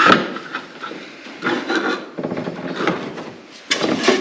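Irregular knocks, clatter and rubbing as objects are handled and set down, with a sharp knock at the start and busier clatter near the end.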